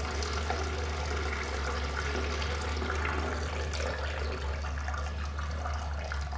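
A steady low hum under a soft, even hiss, as of a vehicle idling, heard from inside the cabin.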